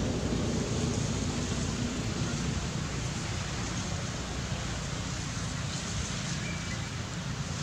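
Steady wind noise on the microphone: a low, even noise under a constant hiss, with no clear calls.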